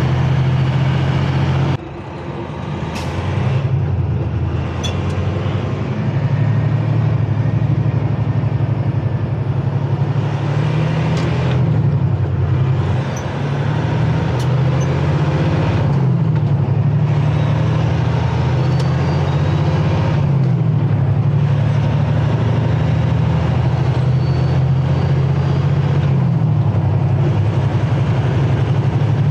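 Semi-truck's diesel engine heard from inside the cab while pulling a light 12,000-pound trailer load. The engine pitch rises and falls several times as engine speed changes, with a sudden drop in loudness about two seconds in.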